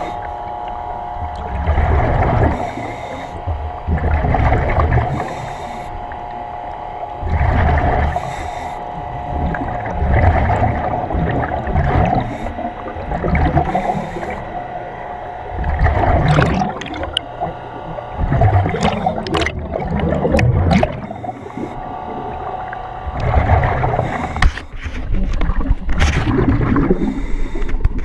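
A diver breathing in a surface-supplied Kirby Morgan helmet underwater: exhaust bubbles rush out in a swell every two to three seconds, with a steady hum running underneath.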